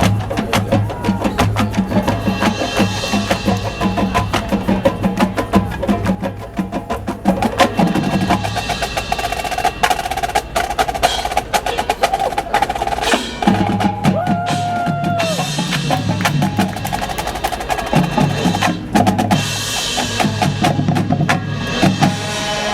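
High school marching band playing, with the drumline's snare rolls and rapid drum strikes over sustained low brass and wind notes.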